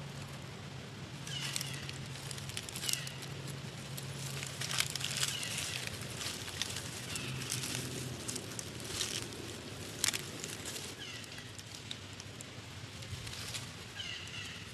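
Dry leaf litter crackling and rustling as long-tailed macaques move and forage, with short high squeaks every second or two.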